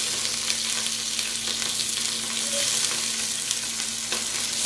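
Curry leaves and green chillies sizzling in hot oil with mustard seeds and cumin, a steady frying hiss with faint crackles.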